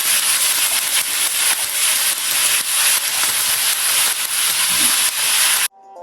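Chicken stir fry sizzling in a hot pan, a loud steady sizzle that cuts off abruptly near the end.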